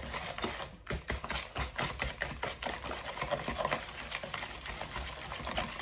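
Cake batter being stirred by hand in a bowl, the utensil knocking against the bowl in a quick, uneven run of clicks and taps.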